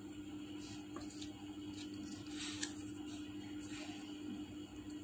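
Soft, brief rustles and scrapes of paper petals being handled and rubbed with a glue stick, with one sharper tap about two and a half seconds in. A steady low hum runs underneath.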